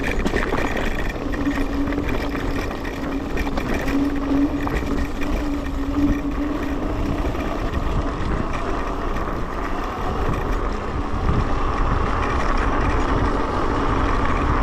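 Electric scooter riding over a rough, muddy track, with heavy wind rumble on the microphone. A steady motor hum runs through the first half, and a higher hum comes up in the second half.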